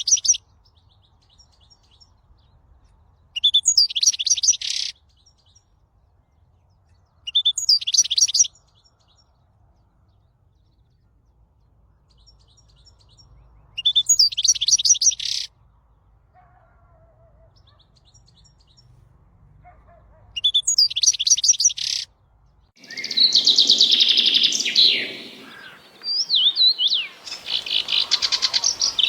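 A small songbird singing a short, high trilled song, a sharp opening note followed by a fast trill, repeated five times with pauses of a few seconds between. About two-thirds of the way through, a denser and fuller run of bird chirping takes over and continues.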